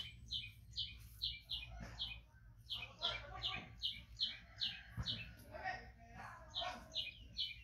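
A bird calling a rapid series of short, high chirps, about two or three a second, breaking off for a moment a little after five seconds and then starting again.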